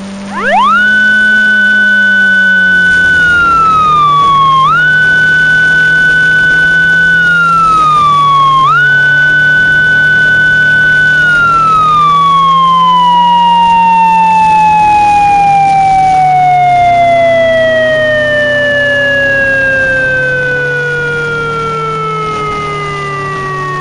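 Synthesized Japanese police motorcycle siren: it winds up sharply about half a second in to a high steady wail, sags and jumps back up twice, then slowly winds down through the rest. A low steady drone runs underneath.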